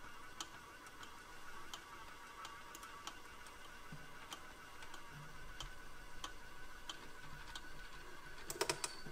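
Faint regular ticking, about one and a half clicks a second, over a steady high hum from a Gauge 1 model shunting locomotive, with a short flurry of louder clicks near the end.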